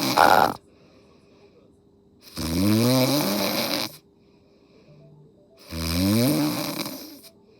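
A sleeping person snoring loudly and rhythmically: the end of one snore, then two more long rasping snores about three and a half seconds apart, each rising in pitch as it goes.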